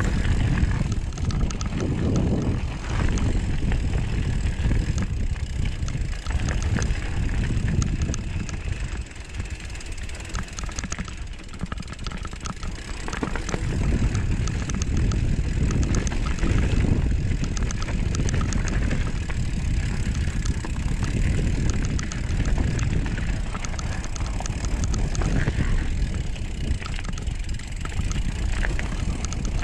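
Mountain bike riding down a dirt trail: wind rumbling over the microphone along with the tyres on the ground, with small clicks and rattles throughout. It eases for a few seconds about ten seconds in, then picks up again.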